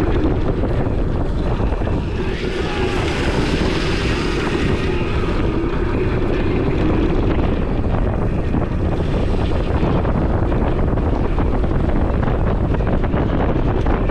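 Steady wind buffeting the microphone over a continuous low drone with a faint wavering hum.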